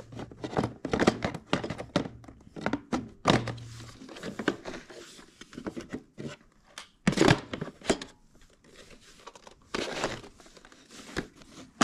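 Hard plastic clicks, knocks and rustling as the underside of a Bobsweep PetHair Vision Plus robot vacuum is handled and its filter compartment cover worked. The louder thunks come about seven seconds in and again near ten seconds.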